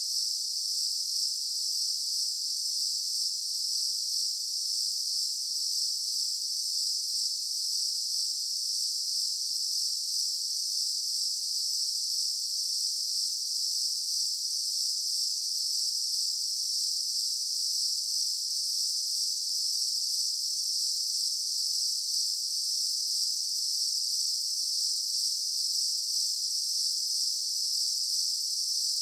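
Daytime chorus of insects: a steady, dense, high-pitched drone that runs without any pauses or change.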